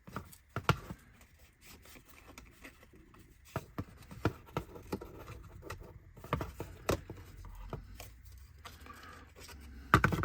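Small laser-cut wooden kit parts being popped out of their sheet and handled: scattered sharp clicks and light knocks with a little scraping, the loudest clicks near the end.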